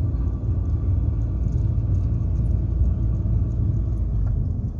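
Car driving along a city road, heard from inside the cabin: a steady low rumble of engine and road noise.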